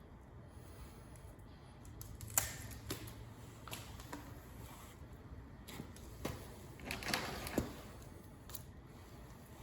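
A knife cutting through a squirrel's leg joints: a scattered series of quiet, sharp clicks and cracks, with a quick cluster of them about seven seconds in.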